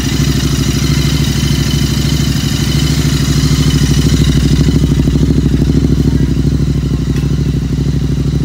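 Royal Enfield 650 parallel-twin engine idling steadily through an aftermarket stainless-steel full exhaust system with Arrow-style tips and the stock baffles fitted. The note swells slightly in the middle, then settles.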